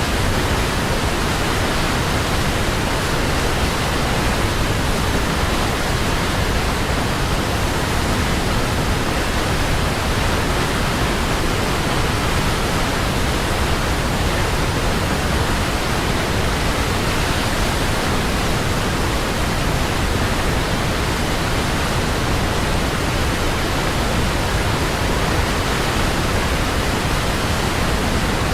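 Waterfall: falling water rushing in a steady, unbroken hiss spread from deep to high pitches, with no changes or separate splashes.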